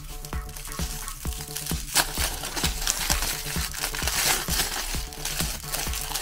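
Aluminium foil crinkling as it is peeled off a banana by hand, starting in earnest about two seconds in, over electronic background music with a steady beat.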